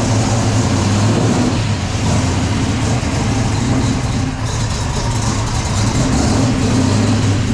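Muscle car's engine running loud, a steady low exhaust rumble that eases briefly about four and a half seconds in.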